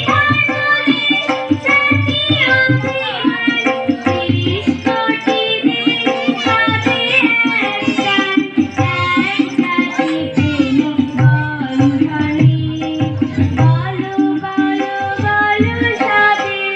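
Bengali devotional-style song with tabla accompaniment: a melody line over steady tabla strokes, with singing.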